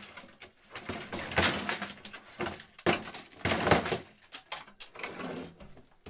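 A claw hammer striking the bare metal chassis of a 1982 Brother Cassette 3912C electronic typewriter: several hard blows with loose metal parts rattling, then lighter clicks and clatter near the end.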